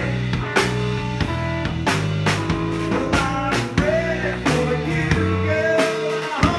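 Live band playing, with electric bass, guitar and a drum kit hitting steadily. Near the end it lands on a final loud hit and drops away, leaving one low note held.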